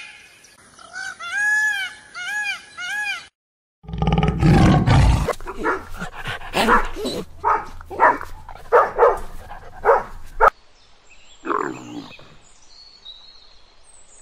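Peacock calling, four short rising-and-falling high calls in a row, then after a brief gap a dog barking repeatedly for several seconds. Near the end, one short low animal call.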